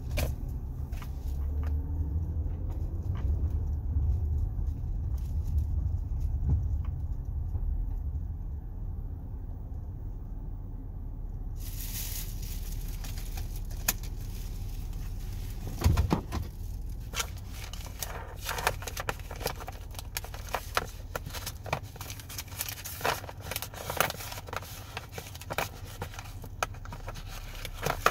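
Low car engine and road rumble heard from inside the cabin as the car rolls slowly and stops. About twelve seconds in the sound changes abruptly to a hiss with irregular crackling and clicking close to the microphone, and one loud thump about sixteen seconds in.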